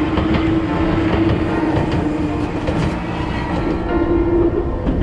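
Enoden electric train running along the rails, its wheels clicking over the rail joints, over a steady hum that comes back slightly higher in pitch near the end.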